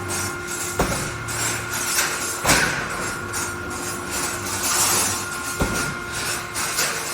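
Steel rebar mesh welding machine running with a steady hum, its steel bars and mechanism giving three sharp metallic clanks.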